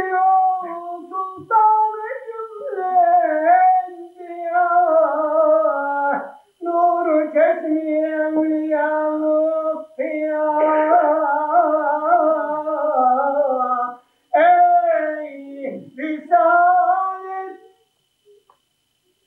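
A single voice singing a slow, ornamented melody with long held notes and no instrument behind it. It sings in four phrases with short breaks and stops shortly before the end.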